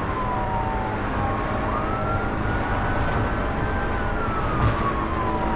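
Police car siren in a slow wail: its pitch falls over the first second and a half, rises again about two seconds in, holds, and falls again near the end. Under it, steady road and engine noise of a car driving at speed.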